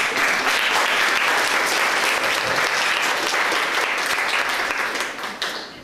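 An audience clapping, a steady wash of applause that starts all at once and dies away near the end.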